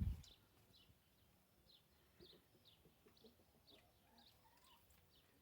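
A bird chirping faintly and repeatedly, short high downward chirps about twice a second, after a low thump right at the start.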